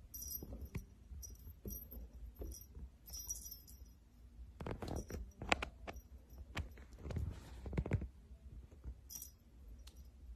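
Faint jingling of a small bell on a string cat toy in short shakes, with soft thumps and rustles as a kitten bats at it on a rug.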